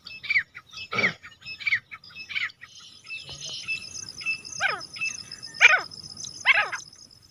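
Grey francolin calling: a quick run of shrill repeated notes, about three a second, then three louder calls falling in pitch, about a second apart. A thin steady high tone runs under the second half.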